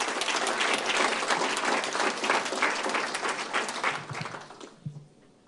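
Audience applauding, many hands clapping at once; the clapping dies away about four and a half seconds in.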